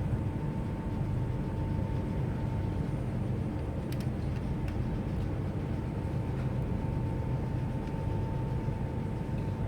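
Steady low rumble and hum with a thin, high steady whine over it, and a single sharp click about four seconds in.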